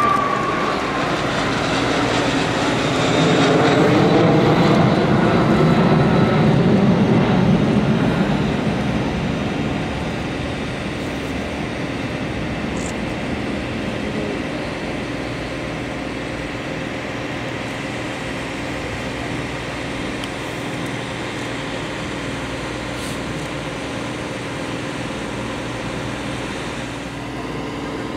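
JASDF U-125 twin-turbofan jet flying past overhead: the engine whine drops in pitch as it passes, loudest about four to eight seconds in, then settles into a steadier, quieter jet sound as the aircraft flies off and comes back on approach with gear down.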